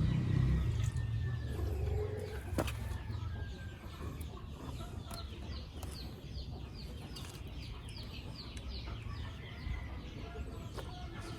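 Chicks or chickens peeping: a rapid run of short, high, falling peeps, about two to three a second, over a low rumble that fades out during the first few seconds.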